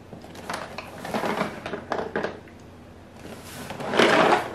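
Cardboard jigsaw puzzle boxes being handled: a few short rustles and knocks, then a louder scrape near the end as a box is slid across the table.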